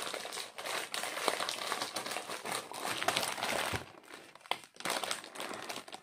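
Clear plastic packaging crinkling as it is handled: dense, continuous crackling for the first four seconds or so, then thinning to scattered crackles and clicks.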